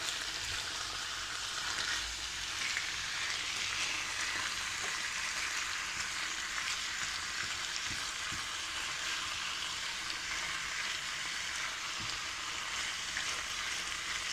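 Chicken livers and sliced onion sizzling steadily in a non-stick frying pan on high heat, stirred with a spatula that gives a few soft knocks against the pan.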